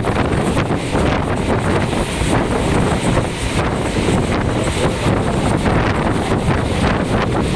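Wind buffeting the microphone over the steady running noise of a moving Mumbai suburban electric train.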